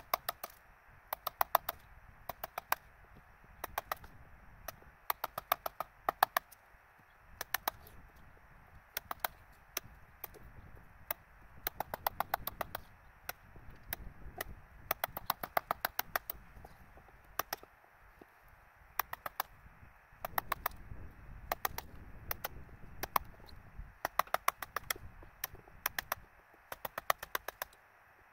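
Hammer tapping a chisel: sharp, ringing strikes in quick bursts of several blows each, with short pauses between bursts.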